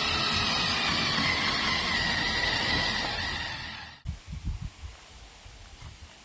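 A power tool runs with a steady whine and cuts off abruptly about four seconds in. A few quieter low knocks follow.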